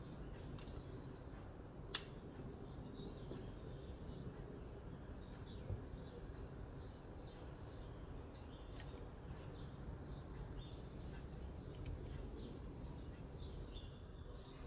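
Faint birds chirping over a low, steady background noise, with one sharp click about two seconds in and a few lighter clicks later.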